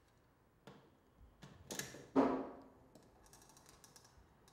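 Handling noises from fitting a rubber rub rail onto a jet ski's hull edge and setting a hand rivet tool against it. There are a few quiet, sharp clicks and knocks; the loudest, about two seconds in, has a short ring. Faint ticking follows near the end.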